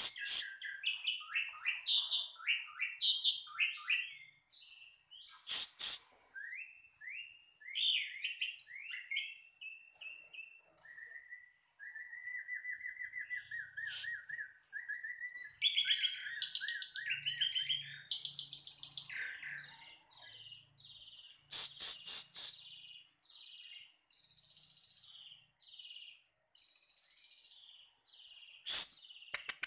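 A songbird singing a long, varied run of chirps, slurred whistles and fast trills, broken by a few sharp clicks, including a quick set of four about two-thirds through.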